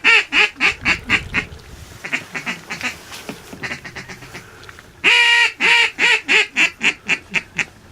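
Duck call blown in two loud descending strings of quacks, each opening strong and tapering off note by note, with softer quacks in between. This is a hail-style call to draw passing ducks toward the decoys.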